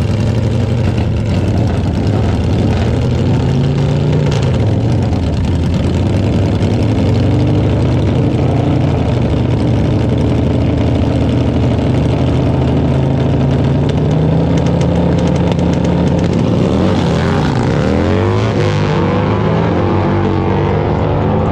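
Two Harley-Davidson V-twin bagger drag bikes running loudly on the starting line, blipping their throttles. About three-quarters of the way through they launch, and their engine pitch sweeps up and down through the gears as they race away.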